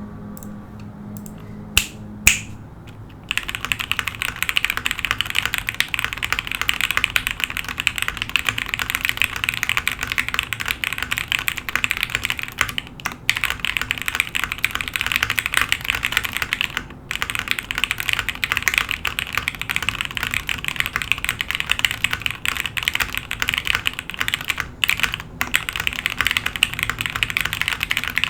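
Rapid typing on a Noxary 378 mechanical keyboard with lubed Gateron Oil King linear switches on a 5 mm polycarbonate plate, gasket-mounted, with no foam dampening. Two single key presses come about two seconds in, then continuous fast typing from about three seconds on, broken by a few brief pauses.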